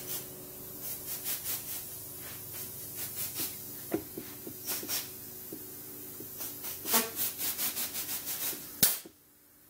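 A rubber golf grip being pushed and worked onto a club shaft with a compressed-air grip tool: bursts of quick rubbing strokes, several a second, over a steady low hum. The sound cuts off suddenly near the end.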